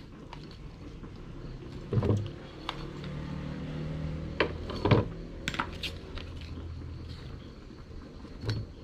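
Metal tongs clicking and mango slices dropping into a clear jar: a scattered series of light knocks and clinks, about ten over the stretch, with a faint low hum behind.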